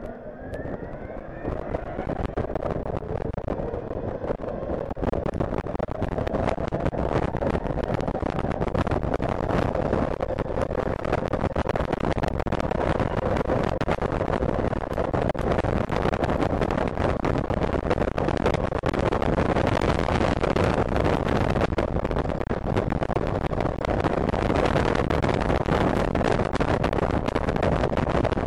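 Zongshen DC electric racing motorcycle pulling away: the electric motor's whine rises in pitch over the first couple of seconds. A rough rush of wind and riding noise on the bike-mounted microphone then builds over several seconds and holds steady as the bike gets up to speed.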